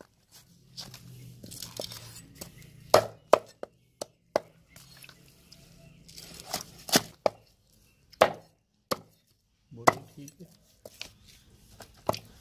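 Large knife chopping fish on a round wooden log chopping block: a dozen or so sharp, irregular knocks of the blade striking the wood, with quieter cutting and scraping between them.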